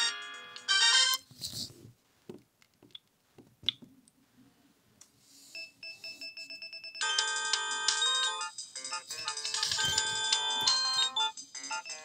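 Polyphonic Alcatel ringtones playing from a Sagem my730C mobile phone's speaker. One tune stops about a second in, a few clicks follow, and another ringtone starts softly at about five and a half seconds, playing loudly through the rest.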